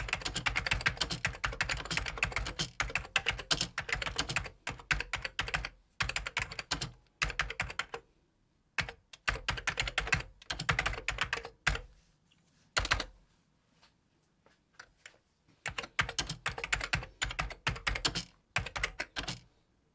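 Typing on a computer keyboard: fast runs of key clicks, broken by short pauses about eight seconds in and again for a couple of seconds around the middle.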